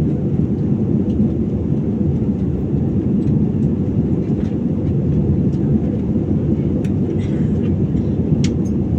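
Steady, even roar of an airliner cabin in climb: engine and airflow noise heard from inside, with a few faint clicks near the end.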